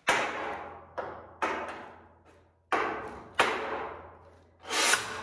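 Five sharp metallic knocks on steel square tubing at uneven intervals, each ringing out and fading over about a second. Near the end comes a louder sound that swells up and then fades.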